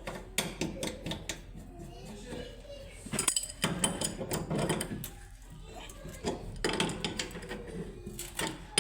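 Irregular sharp clicks and metallic knocks of handwork, with indistinct voices in the background.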